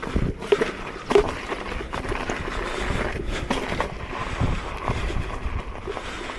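Electric unicycle ridden over a rough dirt trail: steady rolling tyre noise with several sharp knocks and rattles from bumps, the loudest in the first second and a half.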